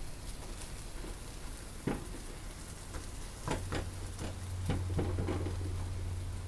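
Rain pattering, with scattered drips tapping at irregular intervals. A low steady hum comes in about halfway through.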